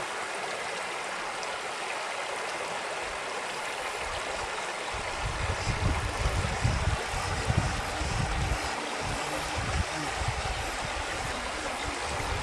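Stream water rushing steadily, with irregular low rumbles from about five seconds in.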